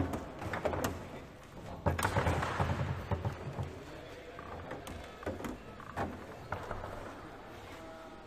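Table football in play on a Leonhart foosball table: sharp clicks and knocks of the ball struck by the plastic players and of the rods, with a sharp knock at the very start and a busy flurry of knocks about two seconds in.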